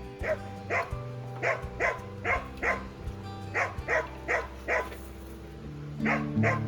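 A dog barking: about a dozen short barks in quick runs of two to four, a pause of about a second between runs, over background music.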